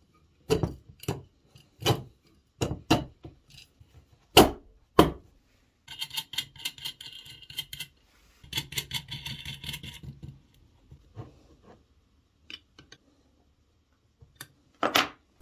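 Steel parts of a bearing carriage being handled and assembled: sharp metal clicks and knocks of bolts, nuts and steel tubes against each other and on the bench. About six seconds in, and again about eight and a half seconds in, there is a couple of seconds of steady rattling.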